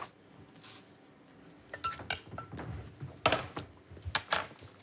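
Kitchen utensils clinking and knocking against dishes and a worktop: a spoon, a saucepan and a ceramic plate being handled while plating. After a quiet start come several sharp clinks, a couple ringing briefly.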